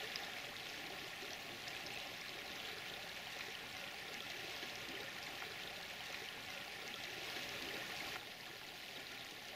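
Steady, faint rush of running water, even and unbroken.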